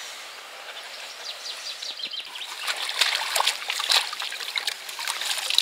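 Lake water splashing and dripping as a mirror carp is slipped back into the water, a patter of small splashes that grows busier about two seconds in.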